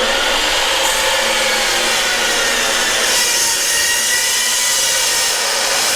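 Power saw making a 35-degree angled cut, its blade running steadily through the workpiece with a loud, even rasp and a faint whine.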